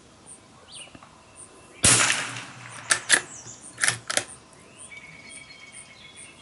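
A single rifle shot from a Ruger American bolt-action rifle about two seconds in, ringing out briefly, followed by a few sharp metallic clicks as the bolt is worked. Faint insects chirp in an even rhythm throughout.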